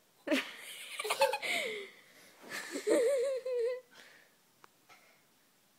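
A child laughing in two bouts of about a second and a half each, the second with a high, wavering pitch.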